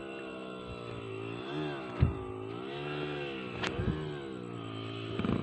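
Honda XRM 125 motorcycle's single-cylinder engine running, its revs rising and falling several times. A sharp knock comes about two seconds in and another just before four seconds.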